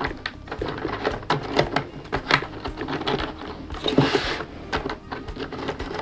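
Wooden pieces of the Steuerrad puzzle box clicking and clacking irregularly as hands slide and turn its arms and levers, with a longer scrape about four seconds in.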